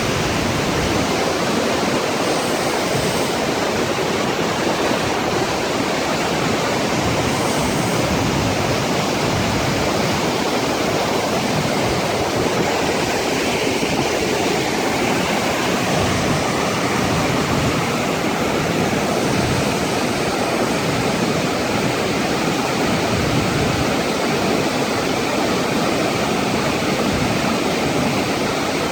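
Flash-flood water rushing and pouring down a desert canyon and over its waterfall: a loud, steady rush of churning water.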